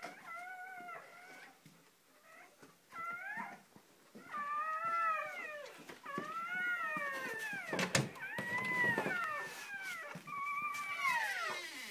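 Newborn puppies crying: a string of high, squeaky cries, each about a second long and arching up then down in pitch, several overlapping. A short knock comes about eight seconds in.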